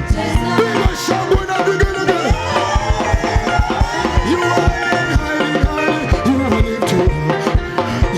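Upbeat praise and worship music: a band with a steady drum beat and sustained keyboard or guitar notes, with a gliding vocal line about two seconds in.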